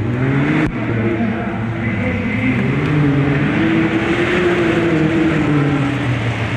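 Rally car engine running hard, its pitch climbing and falling as the revs change.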